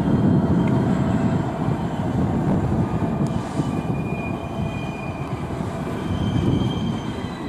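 A Class 66 diesel-electric locomotive's two-stroke V12 diesel engine is running in a low, steady rumble as it shunts slowly through the yard. Faint squeals come from the wheels on the curved track in the second half.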